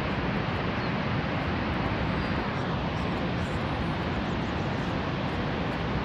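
Steady, even rushing noise of Niagara Falls and the churning Niagara River below it.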